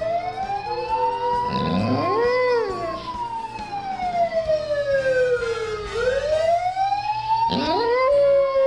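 A wailing siren, its pitch sliding slowly up and down over several seconds, with a boxer dog howling along twice: about two seconds in and near the end.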